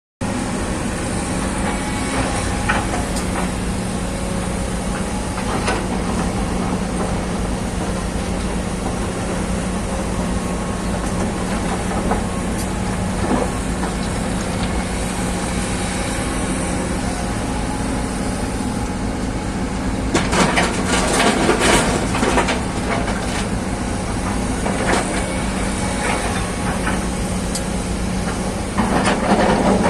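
Excavator's diesel engine running steadily, with louder bursts of clattering from about two-thirds in and again near the end.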